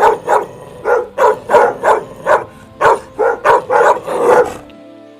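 A dog barking rapidly, about a dozen sharp barks at two or three a second, stopping near the end, over faint background music.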